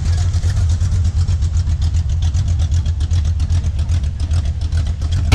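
Car engine idling: a steady low rumble with a fast, even pulsing.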